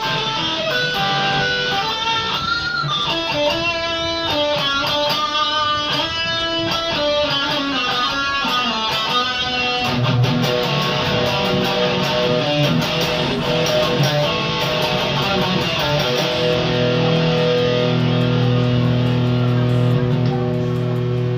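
Custom-built hybrid guitar played solo: a run of single melodic notes with an upward string bend about three seconds in, moving after about ten seconds to lower notes and ending on a sustained, ringing chord.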